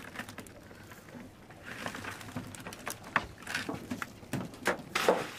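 Live menhaden (pogies) flapping in a cast net being shaken over a plastic bucket: a run of irregular slaps, the loudest near the end.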